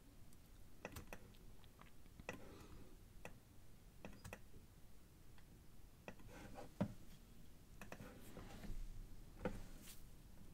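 Faint, irregular clicking of a computer mouse and keyboard, single clicks spaced unevenly, with the sharpest one about two-thirds of the way in.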